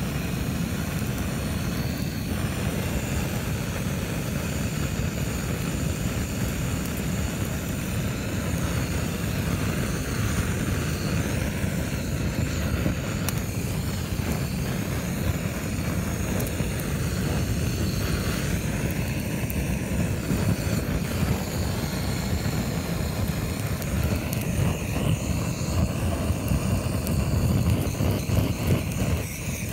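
Handheld gas torch with a brass nozzle burning steadily, a constant rushing noise heaviest in the low end, as its flame is played over a carcass to singe off the fur.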